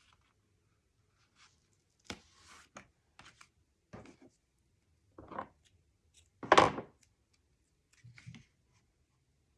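Paper and card being handled and pressed on a tabletop: scattered short rustles and light taps, with a louder thump about six and a half seconds in.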